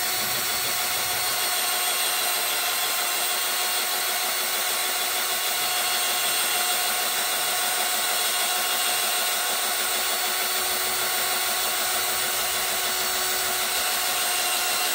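IMAX 24 V cordless drill running continuously while boring into an MDF board, with a steady motor whine that never stutters or stops. This is the load test of its freshly rebuilt battery pack, and the pack holds up.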